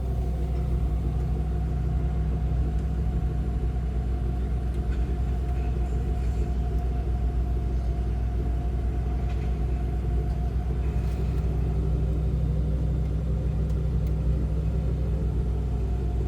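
Garbage truck engine idling steadily, a low, even rumble.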